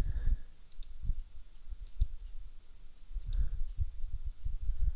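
Computer mouse clicking several times, the clicks a second or so apart, over low thumps and rumble.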